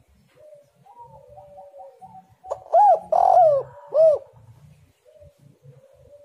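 Spotted dove cooing: soft coos, then about two and a half seconds in a loud three-note coo phrase whose middle note is longer and rougher, after which the soft cooing goes on.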